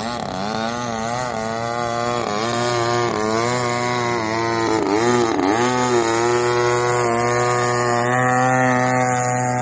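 Engine and propeller of a radio-controlled Extra 330 aerobatic model plane running while the plane hovers nose-up. The pitch rises and falls as the throttle is worked to hold the hover, dips sharply about halfway through, then holds steadier.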